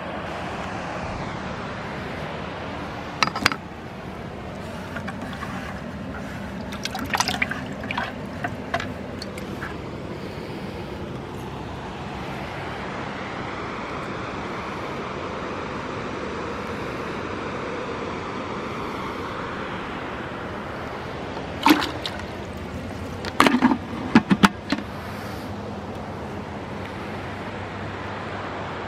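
Steady rush of river water pouring over a low dam. Sharp knocks come in three spells, the last a cluster of several, and they are louder than the water.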